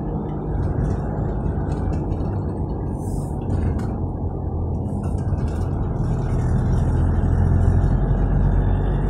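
Steady road and engine noise heard from inside a moving car, with a low rumble that swells louder about seven to eight seconds in.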